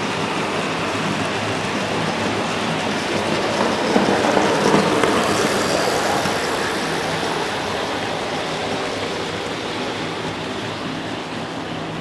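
OO gauge model train running on the track, a steady rolling rattle with a faint motor hum, growing louder about four seconds in as it passes close and then fading slightly.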